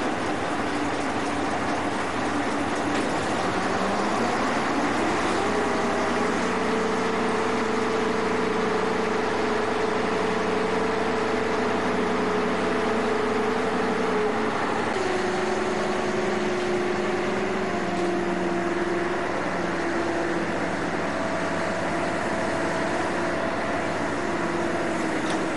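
A ship's engine running under a steady rushing noise. Its pitch rises about four seconds in, holds, then drops back about fifteen seconds in.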